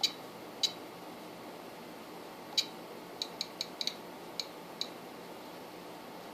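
Front-panel controls of a Korad KA3005P bench power supply clicking as they are worked: about ten short, sharp clicks, a few spaced out and then a quick run of them in the middle.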